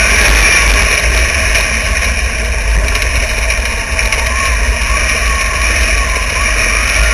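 Wingless sprint car engine running hard at racing speed on a dirt oval, heard from the car's own onboard camera with wind buffeting the microphone. The engine note dips briefly about four seconds in as the car goes into a turn.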